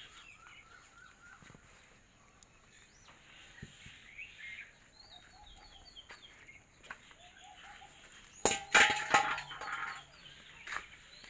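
Birds or poultry chirping and calling repeatedly, with a louder burst of animal calling about eight and a half seconds in.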